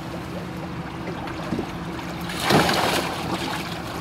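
Water splashing in a boat's live well as a large catfish is grabbed and lifted out, loudest a little over two seconds in, over a steady low hum.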